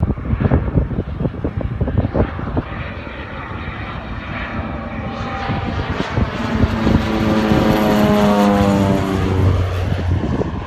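Crop-spraying aeroplane flying low overhead. Its engine and propeller drone grows louder, is loudest a little past halfway, then drops in pitch and fades as the plane passes and moves away.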